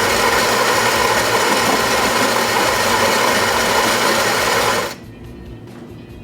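Philips 3200 LatteGo espresso machine's built-in ceramic burr grinder grinding coffee beans for a single shot. It is a loud, steady grinding that cuts off sharply about five seconds in, leaving a much quieter sound with faint, regular ticks.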